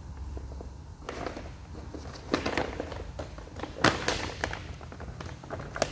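Thick plastic packaging bag crinkling and rustling as it is pulled open by hand, with three sharp snaps or clicks, the loudest a little past the middle.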